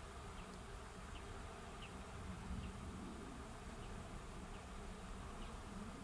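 A buzzing insect, its hum swelling and fading, over a steady outdoor hiss, with faint short high chirps about once a second.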